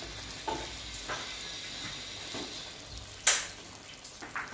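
Masala pulao sizzling and steaming softly in a pot on the stove as it cooks through, with a few light clicks and one sharper clink a little over three seconds in.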